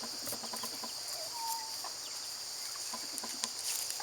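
Chickens making a few soft, short clucks over a steady high chirring of crickets.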